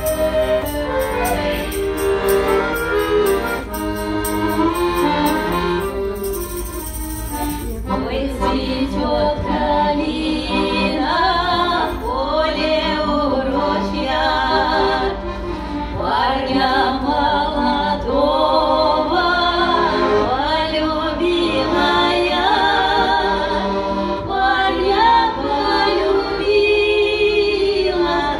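Russian folk song played live: an accordion plays an instrumental opening with a tambourine jingling in rhythm, then from about eight seconds in women's voices sing with strong vibrato over the accordion.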